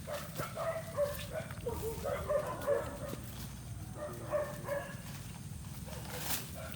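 Animal calls: a run of short pitched cries over the first five seconds, with a steady low hum beneath.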